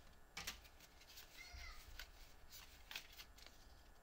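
Pokémon trading cards being handled and flicked through: faint soft clicks and slaps of card against card, several over a few seconds.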